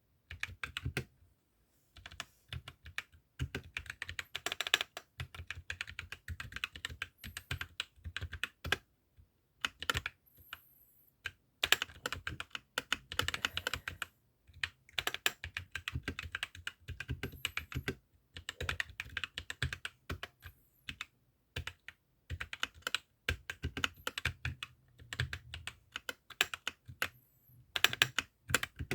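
Typing on an APAYADO DK68 mini mechanical keyboard with MMD Holy Panda 55g tactile switches: fast runs of key clacks broken by short pauses.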